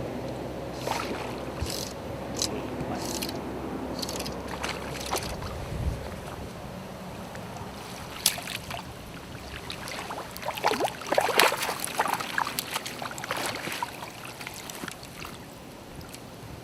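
Water sloshing and splashing in a flowing river, with a burst of louder splashes in the middle.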